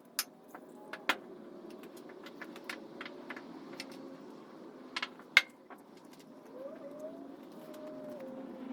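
Sharp metallic clinks and knocks of tools and parts being handled, the loudest about a second in and again around five seconds in, over a faint low steady hum.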